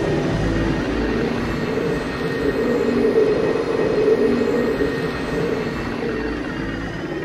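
Experimental turntable music: a dense, steady wash of noise with a droning band in the low-middle range, easing off slightly in the last couple of seconds.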